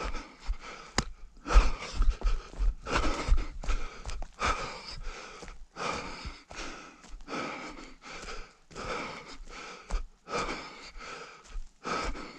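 A runner panting hard and rhythmically, about two breaths a second, with dull thuds of footfalls.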